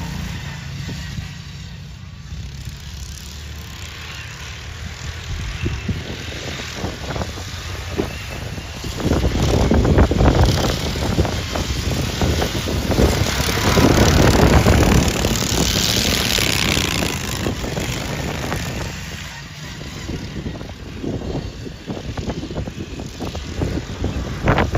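Racing lawnmower engines running hard as the mowers lap a grass track. The noise swells for several seconds in the middle as mowers pass close, then fades and builds again near the end.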